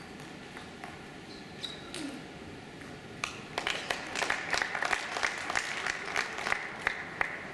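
A few sharp clicks of a table tennis ball ending a rally, then, about three seconds in, a small crowd breaks into clapping for about four seconds before it stops.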